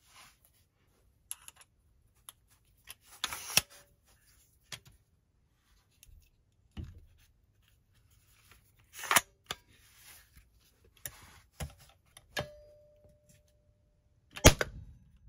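Clicks and knocks of a TriggerShot powder-actuated nailer being handled and reloaded: the breech opens, the spent cartridge is dumped out, and a new nail and load go in before the breech snaps shut. Near the end comes one sharp, loud bang as the tool, pressed down on a board over solid concrete, fires a nail with a yellow powder load.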